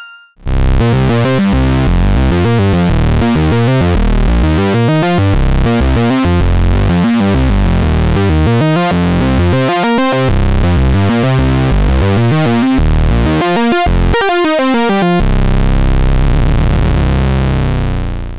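Minimoog-style three-oscillator synth bass, an Omnisphere patch, played as a run of short low notes, then one long held bass note that fades out near the end.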